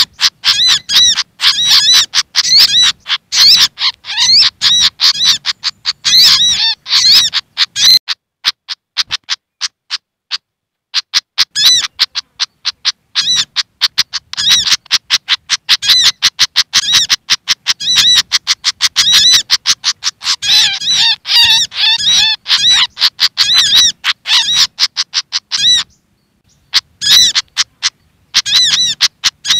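Bird lure recording of agitated calls of the pied fantail (sikatan kipas) mixed with sogok ontong calls: fast, harsh chattering notes repeated in long runs. It pauses for about three seconds about eight seconds in, and briefly again near the end.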